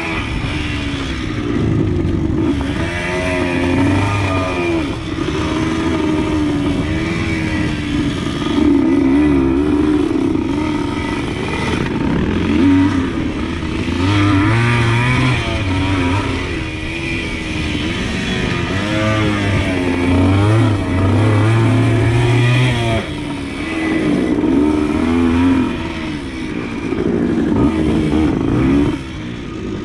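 Suzuki TS100's single-cylinder two-stroke engine being ridden, its pitch rising and falling again and again as the throttle opens and closes.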